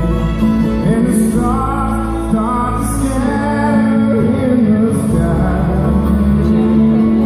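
Live bluegrass band playing: mandolin, banjo, fiddle and upright bass, with a man singing.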